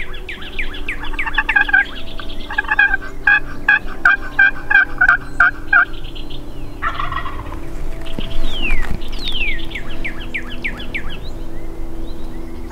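Wild turkey calling and gobbling: runs of quick, evenly spaced calls through the first six seconds and a short rough burst about seven seconds in. Thin, falling whistled bird notes come in alongside.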